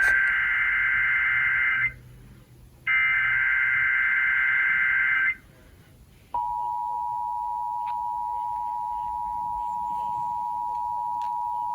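Emergency Alert System test signals: the end of one burst of the warbling digital SAME header data, then a second full burst. After about a second's pause, the steady two-tone EAS attention signal starts about six seconds in.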